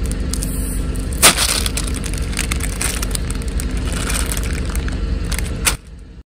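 A car rolling over objects and crushing them: a steady low rumble with many sharp cracks and crunches, one loud crack about a second in. The sound cuts off abruptly near the end.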